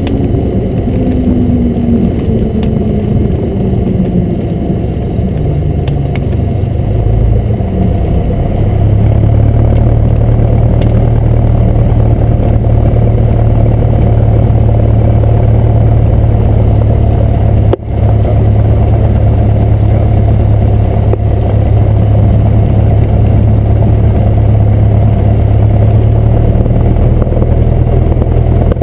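Cessna 172 Skyhawk's piston engine and propeller at low power, heard inside the cabin as the plane slows on the landing rollout and taxis. A whine falls in pitch over the first several seconds as the plane slows. From about eight seconds in the engine settles into a louder, steady low drone, broken by a brief dropout near the middle.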